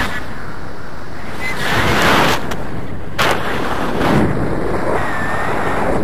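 Airflow buffeting the microphone of a camera carried on a paraglider in flight: a loud, rushing wind noise that swells in gusts about two and four seconds in.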